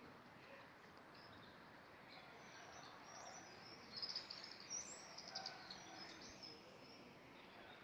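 Small birds chirping with short, high, thin calls, a quick flurry of them about four seconds in, over a faint steady hiss.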